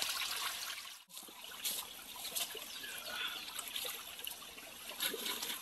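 Small mountain stream trickling over rocks, with a few light splashes. The sound drops out for an instant about a second in.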